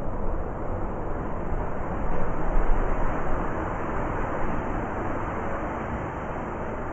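Blizzard wind blowing steadily, swelling into a stronger gust about two to three seconds in.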